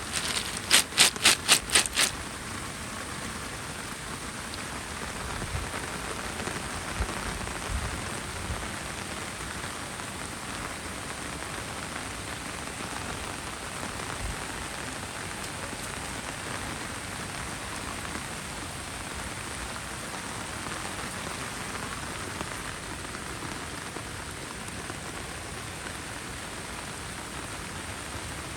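Heavy rain falling steadily, a dense even hiss. Near the start, a quick run of about seven sharp taps over a second and a half stands out as the loudest sound.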